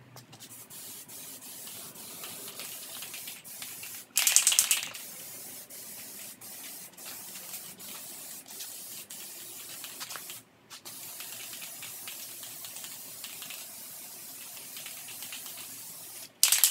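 Aerosol can of Rust-Oleum Peel Coat rubber coating spraying a light first coat in steady hissing passes. There are many short breaks and a clear pause about ten seconds in, with a louder, harsher burst about four seconds in.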